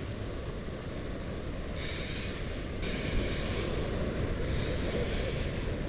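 Waves washing and breaking against jetty rocks in surges of hiss, about three of them in the second half, over a steady low rumble of wind on the microphone.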